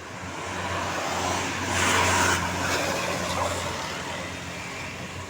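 A road vehicle driving past close by, its engine hum and tyre noise swelling to a peak about two seconds in, then fading.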